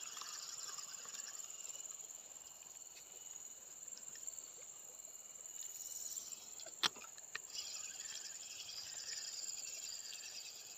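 Insects chirring steadily with a high, even hiss, and two sharp clicks about seven seconds in.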